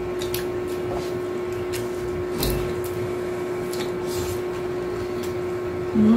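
Two people chewing tacos, with scattered faint mouth clicks and smacks over a steady background hum.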